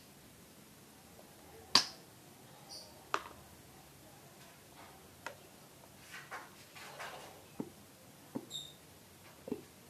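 Scattered light clicks and taps from small objects being handled, about a dozen of them, with a short scraping stretch around the middle; the loudest is a sharp click a couple of seconds in.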